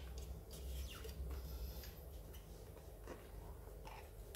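Faint scrapes and light ticks of hands working a rubber scooter tyre back onto its wheel rim, a few scattered handling sounds over a low steady hum.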